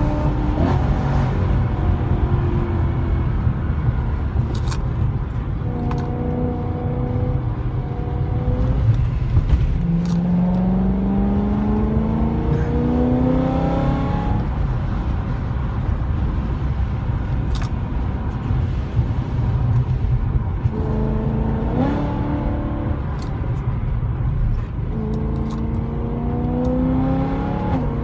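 2011 BMW E92 M3's 4.0-litre V8, with primary cats deleted, heard from inside the cabin. Its pitch climbs in two long pulls under acceleration, with steadier stretches and drops between, over a steady low rumble of road noise.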